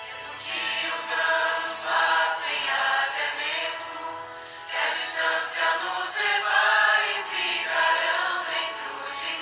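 A choir singing a Christian song over instrumental backing, in two sung phrases with a brief pause about four seconds in.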